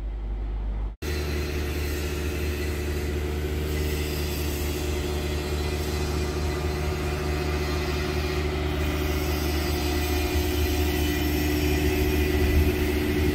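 Steady low outdoor rumble that cuts in abruptly about a second in and holds at an even level.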